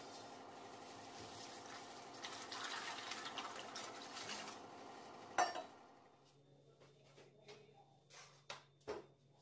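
Water poured from a steel vessel into a stainless steel bowl of dry soya chunks. The pour swells over the first few seconds, and a single sharp clank of steel follows about five seconds in, then a few small clicks near the end.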